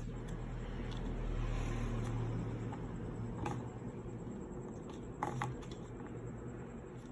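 20-inch metal industrial fan running with a steady low hum that swells about a second in, with a few light clicks.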